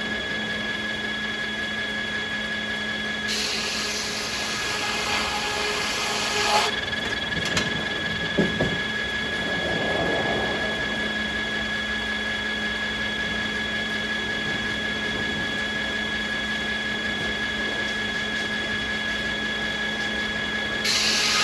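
Sawmill machinery running with a steady, multi-tone hum. A hissing burst lasts about three seconds, a few knocks follow, and the steady running goes on.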